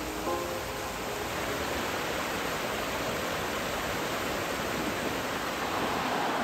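Small river running over rocks and a low waterfall: a steady wash of rushing water.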